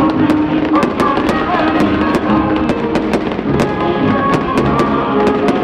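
Aerial firework shells bursting overhead in quick succession, about three sharp bangs a second, over loud music.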